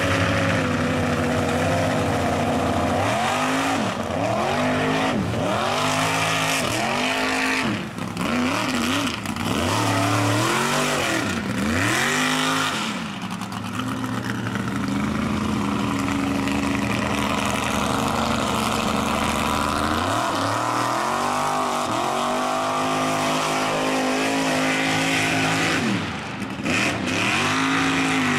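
Lifted mud truck's engine revving hard, its pitch sweeping up and dropping back about once a second, then held at high revs for several seconds before more quick revs, as the big tires spin through the mud bog.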